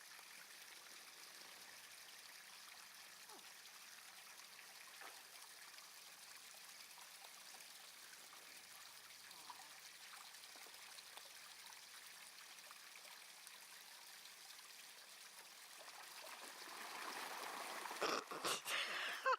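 Faint steady trickle of water running in a bath, swelling louder near the end, with a few sharp splashes just before the end.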